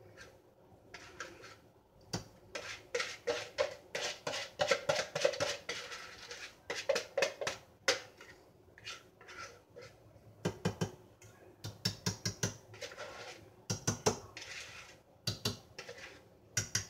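Brownie batter being scraped out of a ceramic mixing bowl into a glass baking dish: a run of quick scrapes and clinks against the bowl, coming in bursts with short pauses between them.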